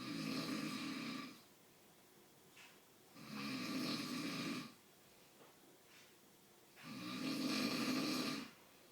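A sleeping man snoring in a steady rhythm: three snores, each about a second and a half long, coming about every three and a half seconds with quiet gaps between.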